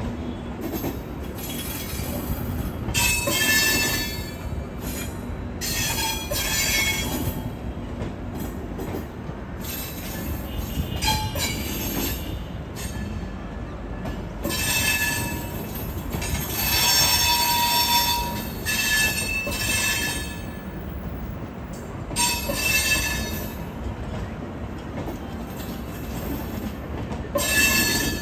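Humsafar Express passenger train running on the track: a steady rumble of wheels on rails, broken by repeated high-pitched bursts of wheel squeal, each a second or two long. The longest and loudest squeal comes about 17 to 18 seconds in.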